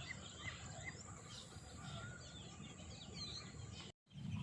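Several birds chirping and calling in short, high notes over a low steady outdoor rumble. The sound cuts out completely for a moment near the end.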